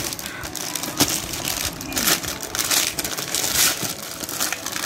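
White plastic packaging bag crinkling and rustling as hands pull it from a cardboard box and work it open, with a sharp tap about a second in.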